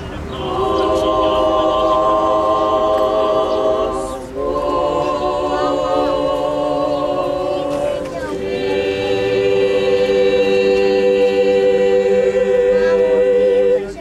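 Orthodox church choir singing unaccompanied in three long held chords, the last the longest, then stopping abruptly.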